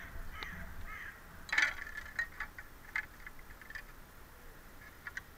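Scattered light clinks and taps of corroded metal on stone as an old gun with a rusted lock and wooden stock, a magnet-fishing find, is handled and picked up off the stone canal edge. The loudest clatter comes about a second and a half in, followed by a few smaller ticks.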